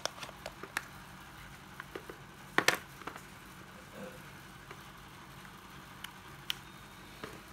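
Scattered clicks and knocks from a 12V cordless drill being handled, the loudest a close pair about two and a half seconds in, over a faint steady hum; the motor does not run.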